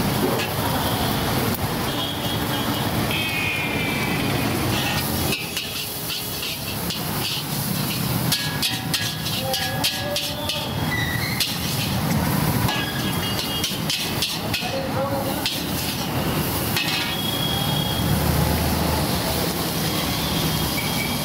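Metal spatula clanging and scraping against a large wok as noodles are stir-fried, over the steady sizzle of the food on a gas burner. The strikes come thick and fast through the middle of the stretch, thinning out towards the end.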